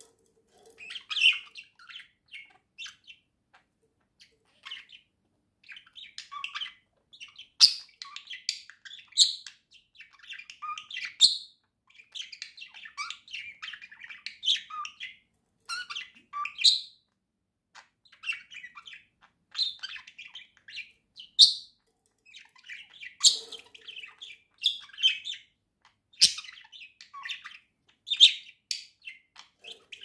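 Budgerigar warbling chatter: a rapid, continuous run of short twitters and chirps with a few sharper, louder notes. It breaks off briefly about 3 seconds in and again around 17 seconds.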